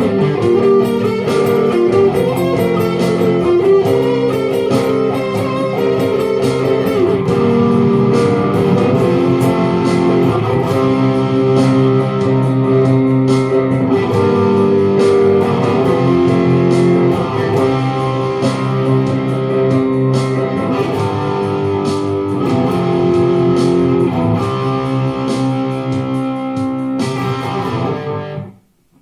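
Guitar playing strummed and picked chords with no singing, as an instrumental passage; it stops abruptly about a second before the end.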